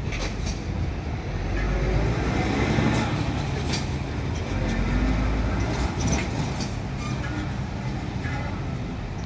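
A diesel locomotive running light, with no wagons, passes a level crossing. Its low rumble swells and then fades over several seconds, with a few sharp wheel clicks over the track.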